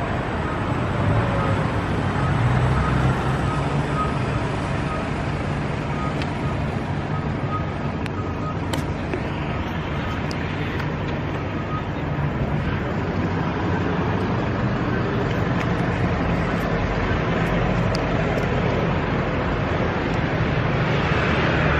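Steady road-vehicle traffic noise, with a continuous low engine hum.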